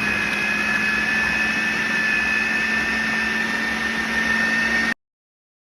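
Electric kitchen appliance motor, blender type, running at a steady speed with a high whine. It cuts off suddenly near the end.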